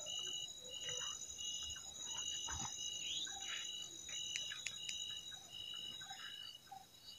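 Night insect chorus, crickets or katydids: a steady high trill under a higher-pitched chirp repeating a little more often than once a second, with faint rustles and a few light clicks.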